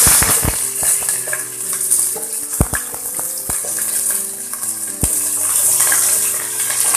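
Pieces of drumstick (moringa pod) sizzling in hot oil with tempered mustard seeds in a stainless steel pot. A few knocks come as the pieces are tossed in the pan.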